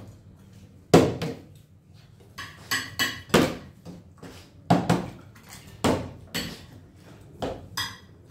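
A partly filled plastic water bottle being flipped and landing on a wooden table, knocking down about once a second with short hollow thuds, with a few lighter clinks in between.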